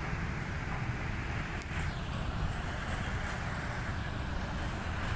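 Steady street traffic of cars and motorcycles passing, with wind buffeting the microphone.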